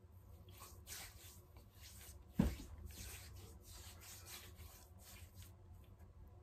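Hands rubbing makeup-removing balm over the skin of the face: a series of faint, soft strokes. One sharp thump about two and a half seconds in.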